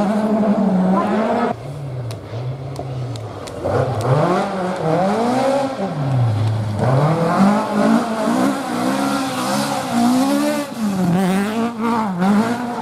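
Rally car engine at stage speed, its pitch rising and falling over and over as it accelerates hard and lifts, with a few sharp cracks about two to three seconds in.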